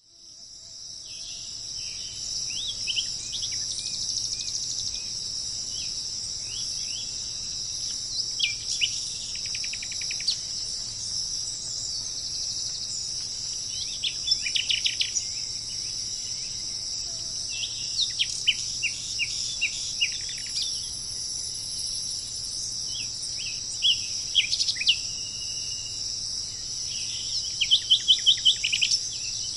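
Tropical insects drone steadily and high-pitched, fading in at the start. Over them, a bird calls in short bursts of quick, falling chirps every few seconds, with the loudest rapid run near the end.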